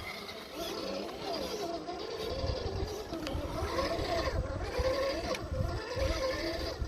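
Electric RC rock crawlers' motors and gear trains whining, the pitch rising and falling as the throttle is worked, over a low uneven rumble.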